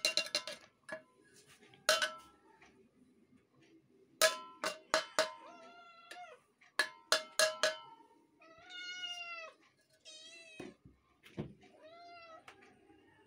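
Several cats meowing in turn: drawn-out meows in the second half, one of them much higher-pitched than the others. The first half holds a series of short, sharp clinks.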